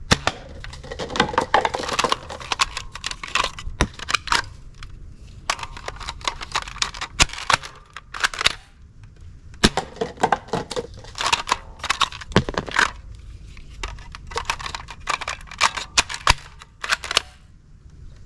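Plastic toy guns being handled: irregular clicks and clatter in clusters, with a couple of brief pauses.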